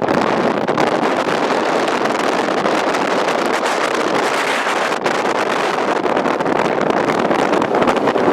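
Wind rushing over the microphone: a loud, steady, dense noise with no distinct tone in it.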